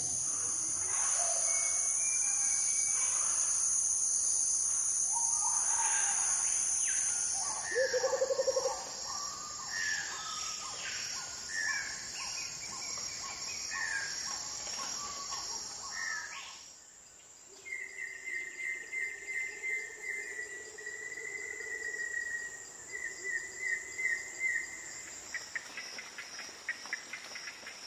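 Forest ambience: a steady high insect drone with assorted bird chirps and calls over it, cutting off abruptly about two-thirds of the way through. Then a bird calls in repeated short trills.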